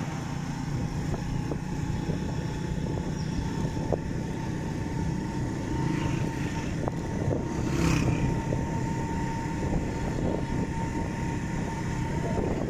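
Honda motorcycle engine running steadily as the bike rides along at road speed, with a brief rush of noise about eight seconds in.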